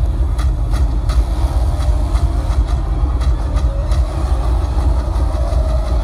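K-line line array speaker system playing a bass-heavy demo at high volume. A deep, continuous bass dominates, with sharp percussive hits on top, most of them in the first half.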